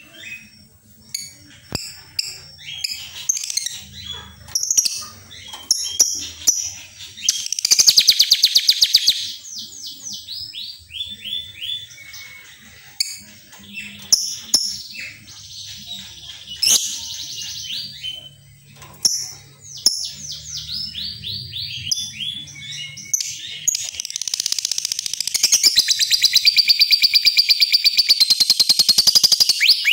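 Lovebird chattering and singing: a busy run of high chirps and short whistles, broken by fast buzzing trills about eight seconds in and again through the last several seconds.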